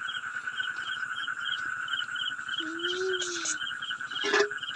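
Night chorus of crickets and frogs: a steady high insect drone with short chirps repeating about three times a second, and one low call about three seconds in. A plastic sack rustles briefly near the end.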